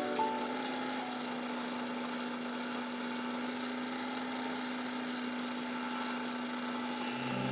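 Wood lathe running steadily, a constant hum under an even hiss as the spinning ulin blank is worked.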